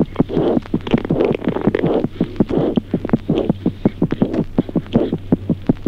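Auscultation recording of a newborn's normal heart sounds: a fast, regular run of short paired beats, first and second heart sounds, over a steady low hum and some hiss.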